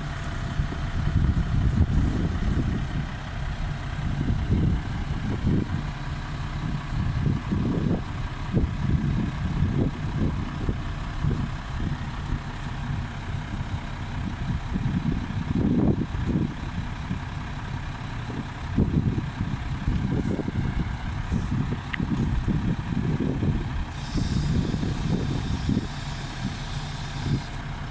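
A heavy vehicle's engine running steadily, with wind gusting on the microphone. A high hiss joins for a few seconds near the end.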